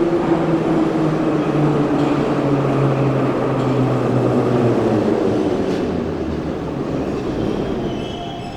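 Metro train running on the rails: a loud rumble with a motor hum that falls slowly in pitch, then the whole sound fades away over the last few seconds.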